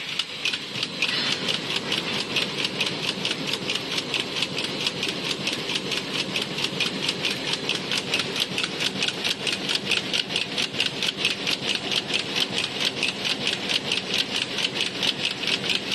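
Warp knitting machine for mesh vegetable bags running, its needle and guide bars clattering in a steady, even rhythm of about four to five beats a second.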